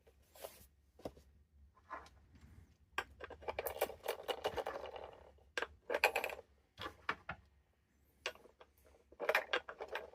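Clicks, taps and rattling of small hard plastic parts being handled and fitted together, as on a handheld computer's case during reassembly. There is a longer run of rattling a few seconds in and a few sharp clicks later on.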